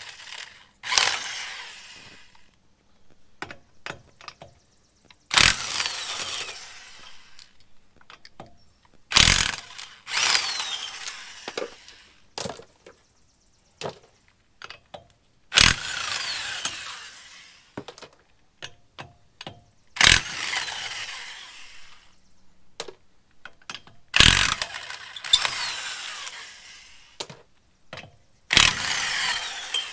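Electric impact wrench spinning lug nuts off a truck wheel in a series of short runs a few seconds apart. Each run starts with a sharp crack and trails off in a whir as the nut comes free.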